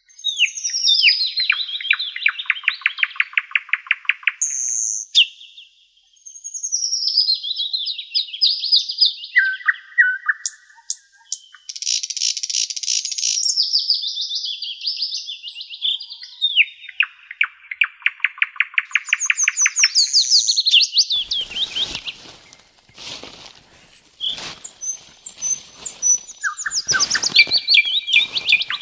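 Songbirds singing in a forest. One bird repeats a phrase of quick notes that fall in pitch into a rapid trill, every five or six seconds. From about two-thirds of the way in, a run of sharp clicks and crackles sounds under the birdsong.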